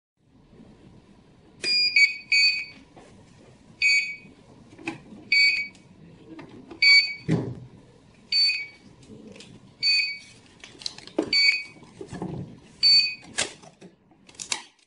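Thermal receipt printer's built-in alarm buzzer giving short high beeps about every one and a half seconds, the first one doubled, while its cover is open with no paper loaded. Knocks and rustles of the paper roll and cover being handled come between the beeps.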